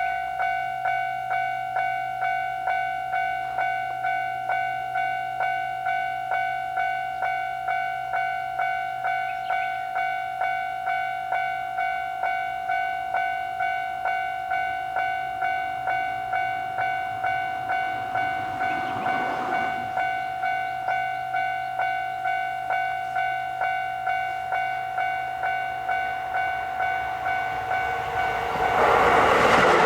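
Railway level-crossing warning bell ringing at an even rhythm of just under two strikes a second. In the last two seconds a Keisei Main Line electric train arrives and passes, its running noise rising loud over the bell.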